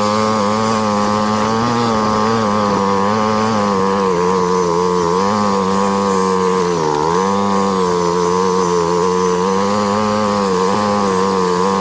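ATV engine running at steady part throttle, a buzzing drone whose pitch wavers with the throttle and dips briefly about seven seconds in.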